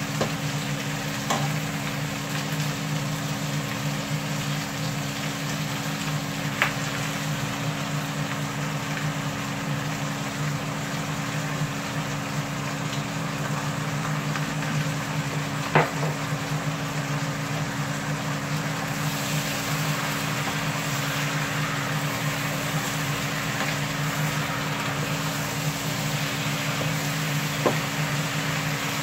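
Shrimp sizzling in a frying pan with butter, garlic and oyster sauce, a steady hiss over a constant low hum, punctuated by a few sharp clicks of utensils against the pan. The sizzle grows brighter about two-thirds of the way through.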